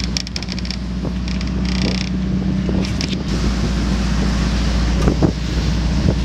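A moving vehicle: steady engine and road rumble with wind buffeting the microphone, and a few short knocks about five seconds in.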